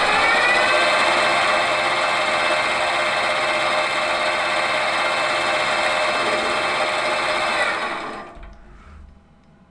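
Metal lathe running, its motor whine rising as the spindle comes up to speed in the first second, then holding steady. About eight seconds in the lathe is switched off and the sound dies away quickly.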